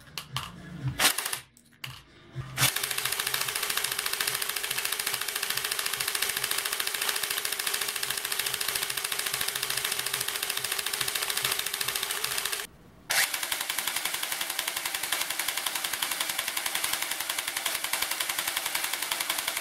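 Small electric DC gearmotor of a home-made hopper magazine running on a battery: a steady, fast rattling whir of motor and gears. It starts after a few clicks, stops briefly about two-thirds of the way in, then runs again.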